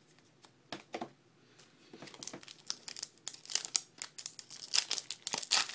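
Plastic wrapper of a trading-card pack crinkling and tearing as it is opened: two soft clicks about a second in, then dense crackling from about two seconds in that gets louder toward the end.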